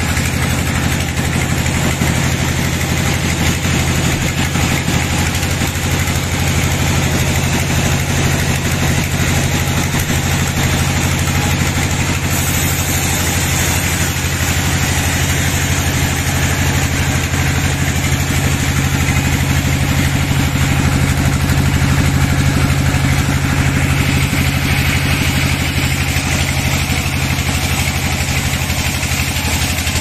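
Sawmill bandsaw running with a steady low hum. About twelve seconds in the sound brightens as the blade enters a bayur log and saws a slab off it.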